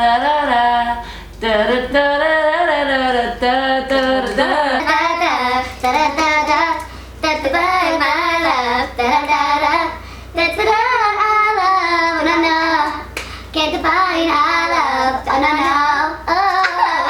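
A young woman mouthing an electronic dance track: a wordless, sliding sung melody in short phrases, with brief breaks every two or three seconds.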